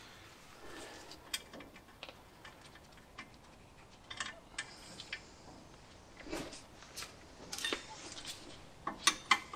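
Metal hand tools clicking and clinking as a nut is started and turned onto a front suspension mounting bolt: separate clicks every second or so, with a quick run of three near the end.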